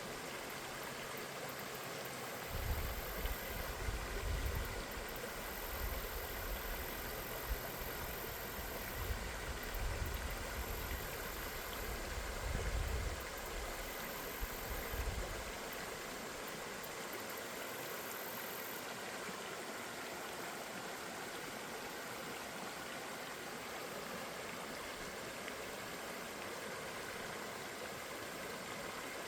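Steady rushing of a river's flowing water. For the first half there is also an uneven low rumble that comes and goes in gusts, then stops.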